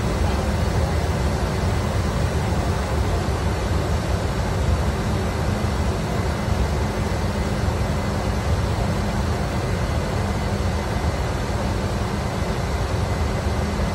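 Steady flight-deck noise of a Gulfstream G550 in flight: a constant low rumble with an even hiss above it.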